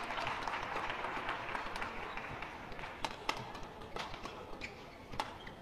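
Badminton rally: rackets strike the shuttlecock with sharp cracks roughly once a second, and players' feet slap the court. Crowd noise from the hall is mixed in, loudest in the first couple of seconds.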